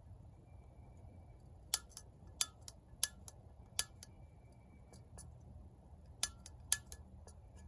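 Piezo igniter of a GasOne GS-7800 backpacking stove snapping as it is pressed over and over to light the gas: a dozen or so sharp clicks in two bunches, with a pause of about two seconds between them.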